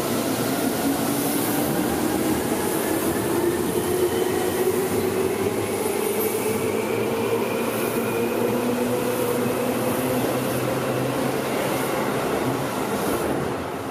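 Electric commuter train running on the rails, its motors whining in a slowly rising pitch as it accelerates, over steady wheel and rail noise. The sound eases a little near the end.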